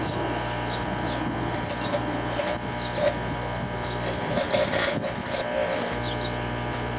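Microwave oven running with a steady electrical hum from its transformer and magnetron. A plasma, ignited from burning toilet paper inside the oven, adds irregular crackling and buzzing. The low hum fades for about a second near the middle, then returns.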